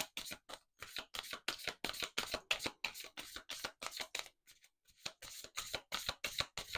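A deck of oracle cards being shuffled overhand: a quick run of soft card slaps and riffling as small packets drop from one hand into the other, pausing for about half a second a little past halfway before resuming.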